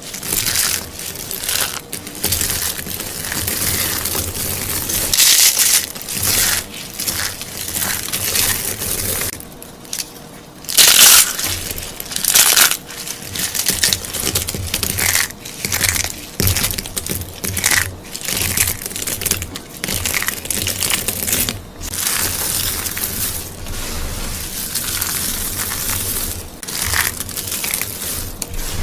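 Soap roses being crushed: crisp, crunchy crackling in irregular bursts, the loudest about eleven seconds in.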